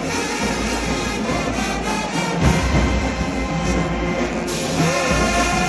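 High school marching band playing: brass horns sounding a melody over drums and a deep low end.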